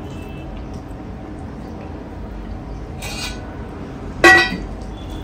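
A person eating with his hands: quiet chewing and mouth sounds, a short noisy sound about three seconds in, and a sharp, loud sound just after four seconds.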